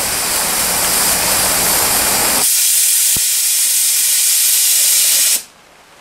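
Pop-off safety valve on a fire-tube steam boiler blowing off steam with a loud steady hiss, lifting at about 135 psi. About two and a half seconds in the lower part of the hiss drops away, and near the end the valve reseats and the hiss cuts off suddenly.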